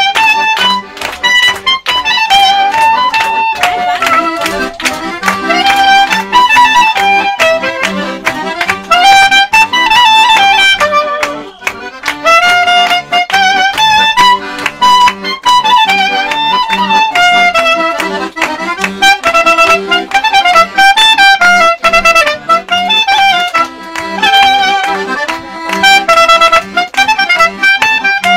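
A clarinet plays a moving melody over an accordion's regular rhythmic chord accompaniment, a folk-style tune.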